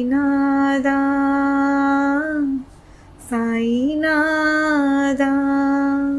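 A woman's solo voice singing the closing held notes of a Tamil devotional song, with no accompaniment: two long sustained notes of about two and a half seconds each, each sliding up into its pitch, with a short breath between them.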